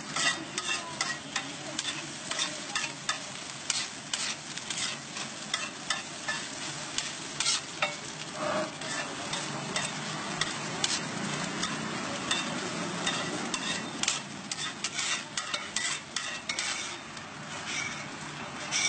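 Metal spatula clacking and scraping on a large flat griddle (tawa) as scrambled egg is chopped and stirred, with many sharp irregular taps over a steady sizzle of frying egg.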